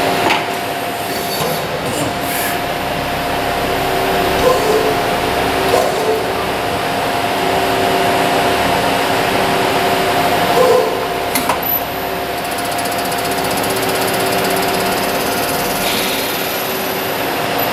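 Miyano ANX-42SYY CNC lathe machining a brass workpiece: a steady machine hum with a held whine, a second tone that cuts in and out as the tooling works, and a sharp click about eleven seconds in.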